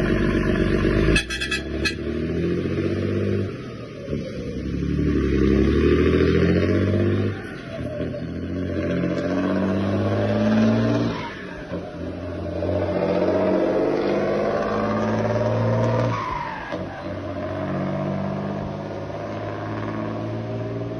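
Mercedes-Benz engine revving loudly, its pitch rising and falling several times as it is run up and let back down. There is a short clatter of clicks about a second in.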